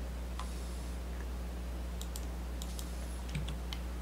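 Computer keyboard keys and mouse clicks: a scattered run of light clicks, one about half a second in and a cluster in the second half, over a steady low electrical hum.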